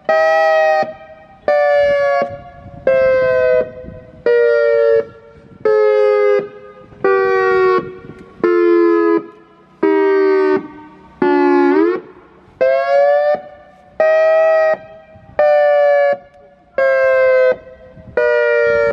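EOWS 612 electronic outdoor warning siren sounding a pulsed tone signal through its horn array: bursts of about 0.7 s, roughly one every 1.3 seconds. The pitch steps lower with each burst, glides up once about twelve seconds in, then starts again high.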